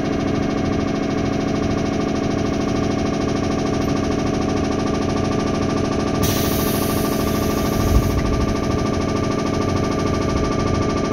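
Running sound of a 211 series electric train heard from on board: a steady hum of traction motors and gears over the rumble of wheels on rail, holding an even pitch. About six seconds in, a hiss of air starts abruptly and lasts about two seconds, with a thump near its end.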